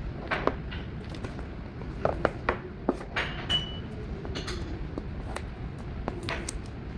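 Small objects and packaging being handled: scattered light clicks and taps with some rustling, and one short high beep about halfway through.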